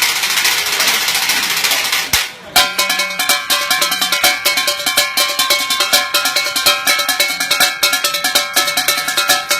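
Street-band percussion music played on everyday objects. A steady noisy wash gives way, after a brief drop about two seconds in, to a fast, even beat of sharp strikes with bright ringing pitched tones.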